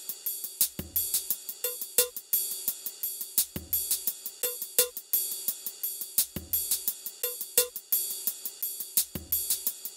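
Background music with a steady drum-machine beat: crisp hi-hat ticks over a soft kick drum, repeating evenly.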